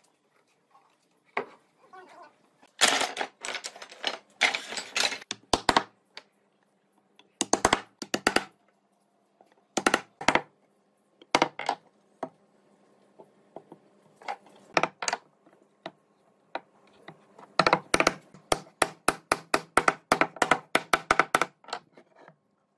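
Bursts of sharp knocks and taps in irregular clusters, then a quick even run of taps at about five or six a second near the end, with a faint steady hum under the later taps.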